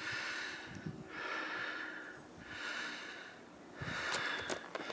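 A hiker's breathing close to the microphone: about four evenly paced breaths, each a soft airy swell a little over a second long.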